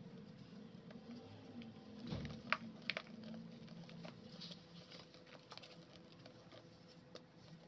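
A block of dry clay crumbled between fingers over a basin of clay powder: soft crumbling and a patter of crumbs and dust falling. Two sharper crunches come about two and a half and three seconds in.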